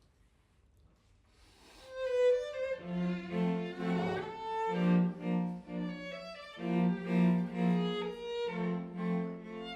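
String chamber orchestra beginning a movement about two seconds in, after a short quiet: violins carry a melody over repeated low notes from cellos and basses.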